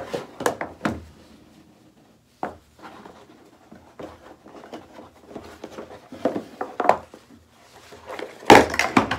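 Cardboard packaging of a Nest thermostat being handled and opened: the printed sleeve slid off and the plain inner box worked open, with soft rubbing and scattered light knocks. A louder cluster of clacks and scraping comes near the end.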